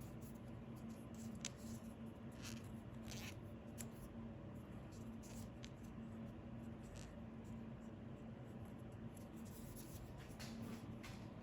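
Faint scratching and small clicks of hand work, a few seconds apart, over a low steady hum.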